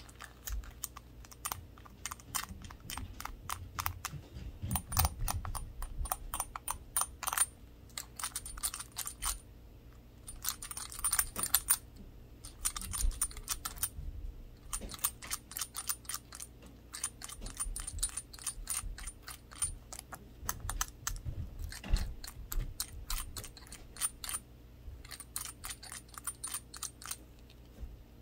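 Rapid light tapping on a small glass shot glass with a handle, done with gloved fingers: quick runs of many clicky taps lasting a few seconds each, with short pauses between runs.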